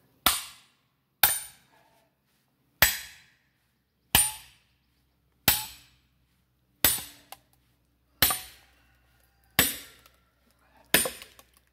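A hammer striking the back of a hatchet that is driven into a round of black locust firewood. There are nine sharp metallic blows, evenly spaced about one every second and a half, each ringing briefly. The split pops open and the sound of the blows changes as the wood gives way.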